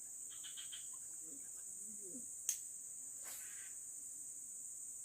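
A steady high-pitched drone of forest insects. A few faint quick clicks come near the start, and one sharp click about halfway through.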